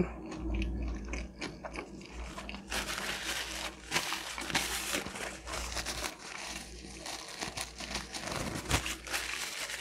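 Chewing with small mouth clicks, then from about three seconds in a paper napkin crinkling and rustling as it is handled and pressed to the mouth.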